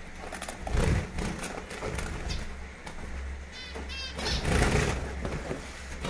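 Rustling and knocking from a cardboard carry box being handled at a mesh cage, with a quick run of small high chirps from zebra finches about three and a half seconds in.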